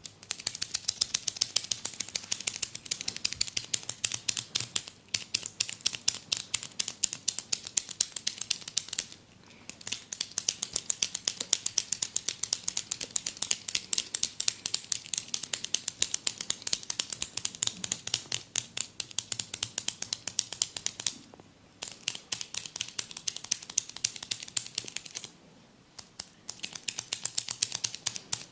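Rapid, crisp crackling clicks from a barber's hands working during an oil massage, in long bouts broken by three short pauses.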